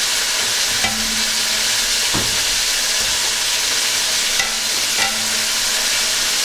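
Green chillies frying in hot oil in a metal pan: a steady sizzle, with a wire skimmer stirring them at first and a few light clicks.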